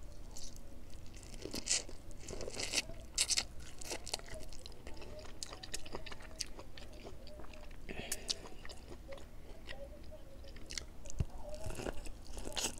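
Biting into and chewing sauce-coated boiled corn on the cob: repeated crunches of the kernels and mouth sounds of chewing.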